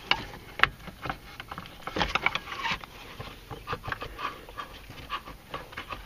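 Seatbelt retractor reel being worked loose and slid out from behind plastic pillar trim: a run of sharp clicks, knocks and scrapes of plastic and metal, the loudest click about half a second in.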